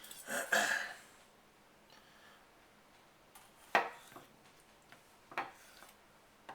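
Kitchen items being handled on a counter: a short scraping slide in the first second, then two sharp knocks, the second about a second and a half after the first, with a few light ticks.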